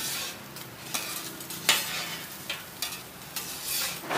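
Roti John sizzling on a hot griddle, with a metal spatula scraping and knocking against the plate several times.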